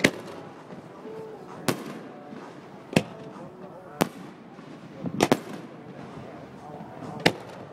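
Fireworks going off in a string of sharp bangs, about six in all and irregularly spaced a second or so apart, with a quick double bang a little past the middle. People's voices chatter faintly underneath.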